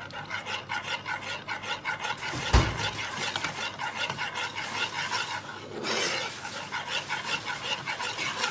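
Spoon stirring thick pumpkin soup in a saucepan, quick rhythmic scraping strokes against the pot, several a second, with one heavy knock about two and a half seconds in.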